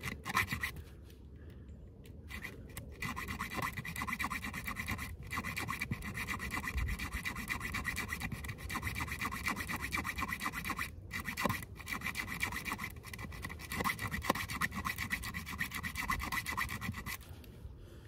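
Metal-cutting jigsaw blade in a Leatherman Surge multitool sawing through a wet, rusty iron nail. It makes a rapid rasping scrape of short back-and-forth strokes that starts a couple of seconds in, pauses briefly twice and stops just before the end. The blade is binding in the deepening kerf near the end of the cut.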